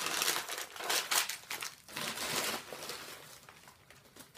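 Wrapping paper crinkling and tearing as a present is unwrapped by hand, in a run of uneven rustles that are loudest over the first two seconds or so and then die down.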